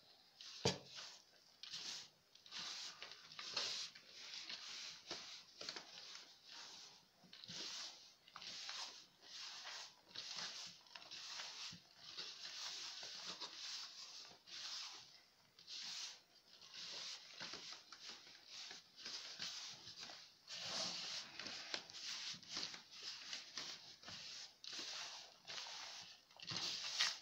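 Hands rubbing and squeezing a crumbly flour-and-sesame chebakia dough in a large metal bowl, a soft rustling in repeated strokes about once a second, while warm water is worked in bit by bit and the dough is not yet bound. A single knock about a second in.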